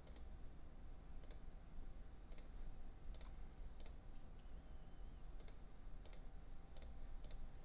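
Computer mouse clicking while files are selected and opened: about eight single, quiet clicks, roughly one a second, with a brief faint high tone about halfway through.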